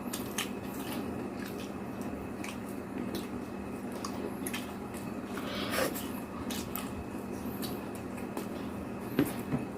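Close-up eating sounds: wet, squishy chewing and mouth smacks with many small scattered clicks, over a steady low hum. A sharper, louder click comes near the end.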